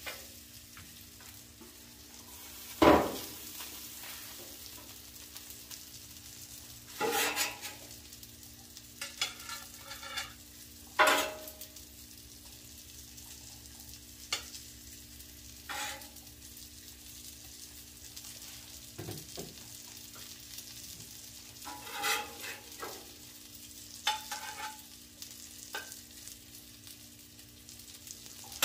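Ribeye steaks and broccoli sizzling on a Blackstone flat-top griddle. A metal spatula knocks and scrapes against the steel cooktop about a dozen times; the loudest clank comes about three seconds in.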